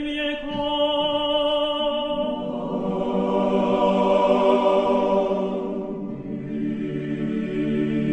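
Orthodox church choir chanting in Church Slavonic in sustained held chords. Fuller, lower voices come in about two seconds in, and the harmony moves lower about six seconds in.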